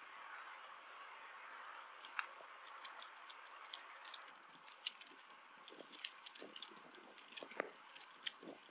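Faint bicycle riding noise: a steady hiss with scattered light ticks and clicks, which come more often in the second half.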